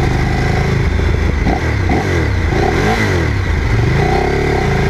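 Ducati Streetfighter 848's L-twin engine running while riding, its revs dipping and climbing several times through the middle, over steady wind and road rush.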